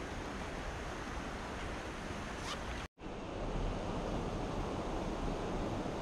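Waterfall: a steady rush of falling water. It breaks off for an instant about halfway through and comes back a little louder.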